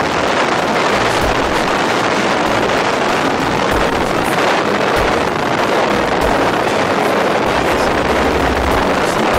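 Loud, steady wind noise buffeting the microphone, with uneven low rumbles, over the rush of a motorboat running across open water.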